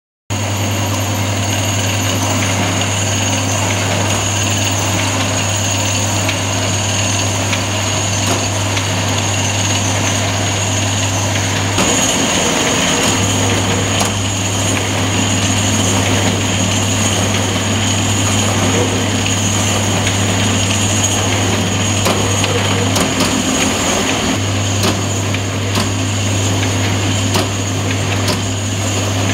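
Rollem SmartSlit sheet slitting machine running at speed, feeding printed sheets through its slitting wheels: a steady mechanical hum and high whine with scattered faint clicks. The low hum drops out briefly twice.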